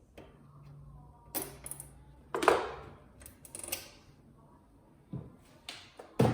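Scattered clicks and knocks of cable clips, zip ties and plastic parts being handled inside a flat-screen TV, the loudest about two and a half seconds in. A faint low hum runs under the first few seconds.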